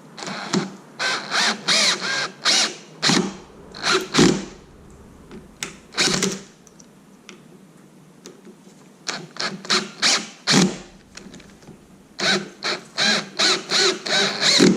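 Cordless drill driving the screws of a deadbolt, run in short trigger pulses with brief pauses between groups and a quick string of pulses near the end.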